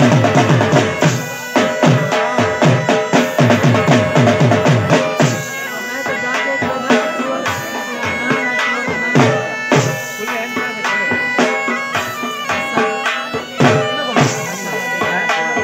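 Jhumar folk music: heavy drumming at first, then from about six seconds in a reedy wind instrument plays a melody over a steady drone while the drum beats go on more lightly.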